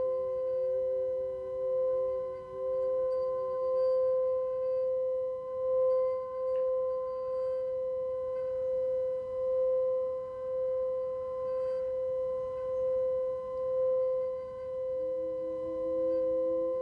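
Tibetan singing bowl sounding one steady, sustained tone that swells and fades in a slow wobble about once a second. A second, lower tone comes in near the end.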